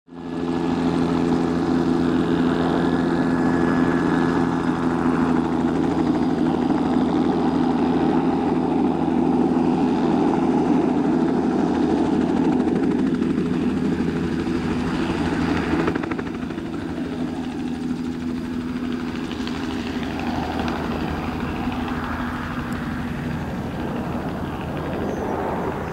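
Bell 206 JetRanger helicopter's single turbine engine and two-bladed rotor, flying a low crop-spraying pass: a steady drone of several tones, loud at first, dropping in level about two-thirds of the way through as the helicopter moves away over the field.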